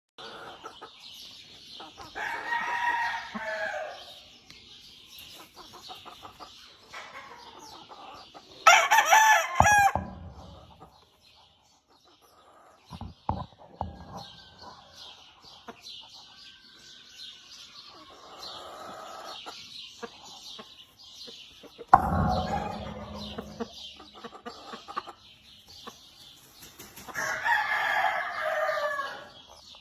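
Gamefowl roosters crowing: about four separate crows, the loudest about a third of the way in, over a steady high chirping.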